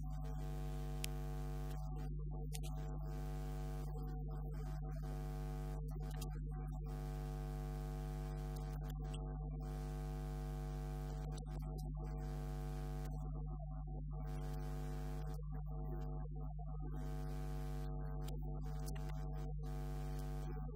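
Steady electrical hum or buzz with many overtones, holding one pitch without change; no speech comes through it.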